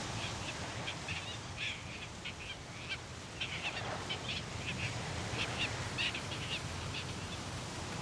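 Albatross colony calling: many short, scattered calls over a steady low rush of wind and surf.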